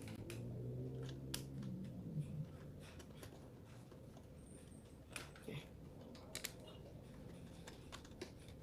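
Faint, scattered small clicks and taps, several seconds apart, from a helmet's plastic visor ratchet plate and its small screws being handled and set in place.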